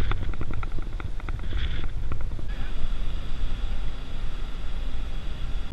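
Wind buffeting the microphone over the low rumble of a motor boat under way. In the first two seconds there is a rapid run of short high ticks, about five a second; after that a steady high whine joins.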